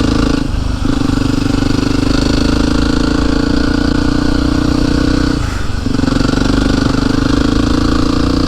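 Yamaha WR single-cylinder motorcycle engine running steadily under way, its note briefly dropping off about half a second in and again a little past the middle.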